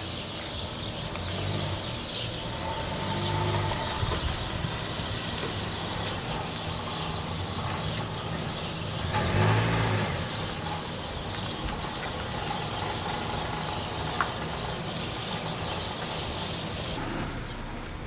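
A motor vehicle's engine passing by, swelling a little about three seconds in and loudest at about nine to ten seconds, over steady outdoor background noise.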